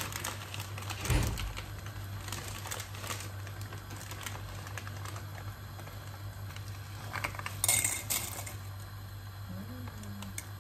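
Dry spaghetti being opened and tipped into a stainless steel pot on the stove: packet rustling, small clinks and a dull knock about a second in, then a brief rattle as the spaghetti drops into the pot about three-quarters of the way through. A low steady hum runs underneath.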